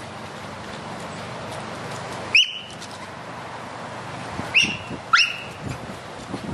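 Three short, sharp, high-pitched animal calls, each sweeping quickly up and then holding for a moment: one about two and a half seconds in and two close together around five seconds in, over a steady background hiss.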